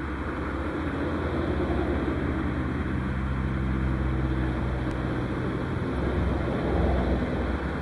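A motor vehicle's engine running steadily: a continuous low hum over a wash of noise.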